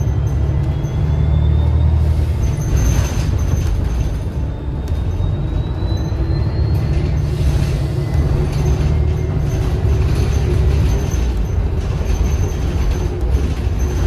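Inside a 2013 New Flyer XDE40 diesel-electric hybrid bus under way: a steady low drivetrain rumble, with the high whine of the electric drive rising in pitch twice as the bus gathers speed, and a few brief rattles.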